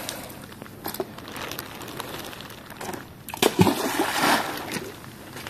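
Rubber boots and hands squelching and splashing in wet mud and shallow puddles. There are a few sharper wet slaps about a second in, and a cluster of them around three and a half to four and a half seconds in.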